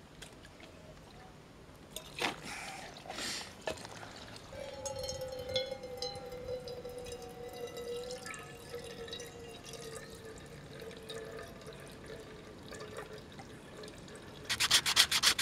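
Water poured from a billy can into a Milbank canvas filter bag, trickling and dripping through the cloth, with a thin steady tone running under the trickle. Near the end, loud rapid scraping strokes begin: a knife scraping silver birch bark into tinder powder.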